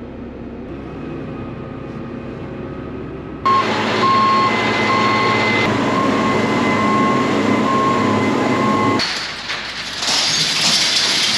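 Case IH 8250 Axial-Flow combine's engine running as the machine is driven, at first muffled inside the cab. About three and a half seconds in it becomes suddenly louder and fuller, with a steady high whine, and it changes again near the end with more hiss.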